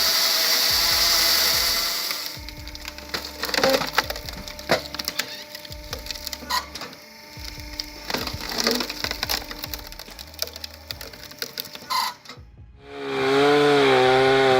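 Firewood being split and handled: a steady rasping noise at first, then a long string of sharp wooden cracks, splintering and knocks. Near the end the sound cuts off and a motor starts running steadily with a wavering pitch.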